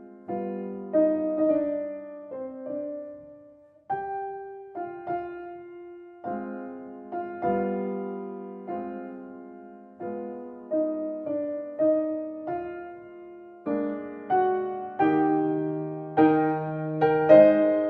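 Background music: slow piano chords struck and left to ring, the notes coming a little thicker and louder near the end.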